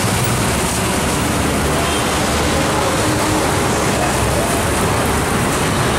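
Steady, even roar of a street tiffin stall: the gas burners under a long dosa griddle running at full flame, blended with street traffic, with faint voices in the background.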